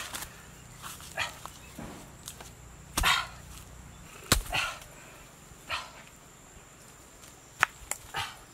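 A string of short knocks and scuffs, about one a second, as heavy rounded pots are lifted and set down on dry bamboo leaves and charcoal.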